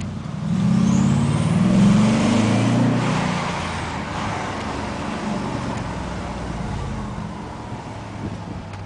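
C5 Audi RS6's twin-turbo V8 with a Milltek exhaust accelerating hard up a steep hill, its engine note rising and loudest about one to three seconds in, with a high turbo whistle. The sound then fades steadily.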